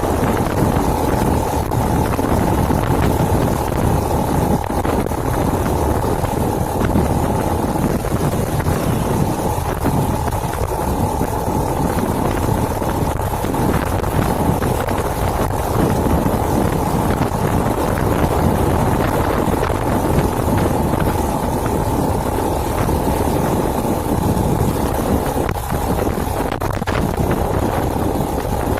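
SYM RV1-2 110cc motorcycle running steadily on the move, with the engine and wind and road noise blending into a constant rush.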